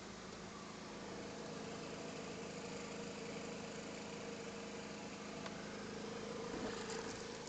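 Boat motor idling steadily. Near the end, water splashes and drips as a wire-mesh eel trap is hauled up out of the water.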